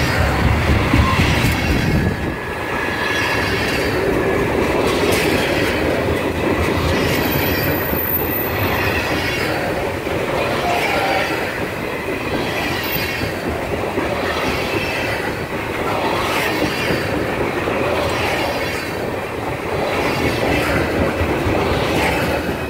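Freight-train tank cars rolling past close by: steel wheels clacking over the rail joints in a repeating beat as each car's wheel sets go by, with some wheel squeal. The rolling noise falls away near the end as the last car clears.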